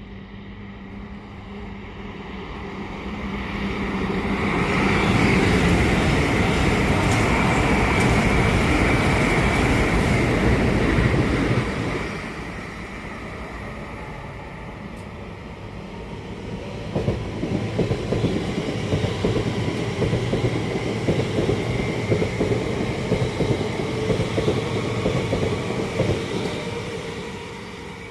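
Train passing on the line: the noise builds over the first few seconds with a steady high whine, stays loud until about twelve seconds in, dips, then wheel clatter over the rails comes up loudly again and fades near the end.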